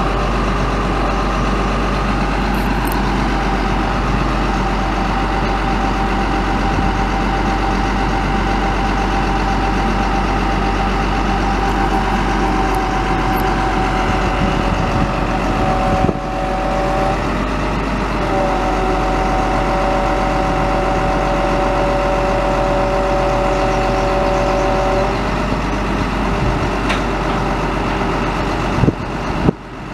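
Diesel engine idling steadily, with a steady whine over it that breaks off for a moment about halfway through and stops a few seconds before the end. There is a sharp knock near the end.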